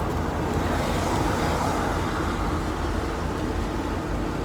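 Steady road and engine rumble with wind noise inside a moving motorhome: a low drone under an even hiss that swells briefly about a second in.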